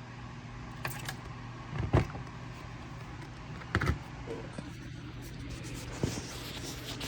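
A few light knocks and clicks from handling, four spread over several seconds, over a steady low hum.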